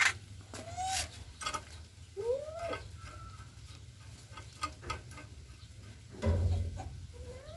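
Several short animal cries that rise and fall in pitch, among small metallic clicks and taps of hand tools as the diesel injector is fitted back onto its fuel line, with a dull thump about six seconds in.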